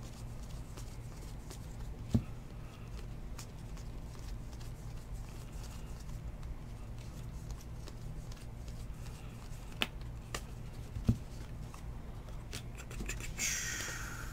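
Trading cards from a 2019 Bowman baseball pack being flipped through by hand: soft slides and small clicks as cards are moved to the back of the stack, with a few sharper taps and a short rustle near the end. A steady low hum lies underneath.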